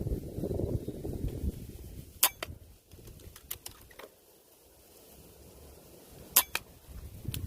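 Two sharp air rifle shots about four seconds apart, each followed by a few lighter clicks. Wind buffets the microphone at the start.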